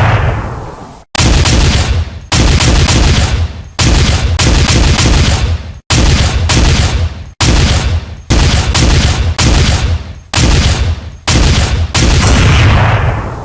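A series of gunfire and explosion sound effects played as trading-indicator alerts, about a dozen in quick succession, each starting abruptly and dying away over about a second.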